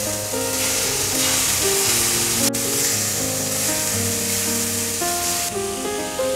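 Marinated prawns sizzling steadily as they fry in hot butter in a nonstick pan, with background music of held notes over it. The sizzle eases slightly near the end.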